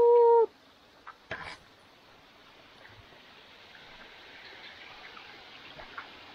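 Faint, steady rushing of a freshwater stream that slowly grows louder. A short, loud, steady beep-like tone sounds at the very start, and a single knock comes about a second and a half in.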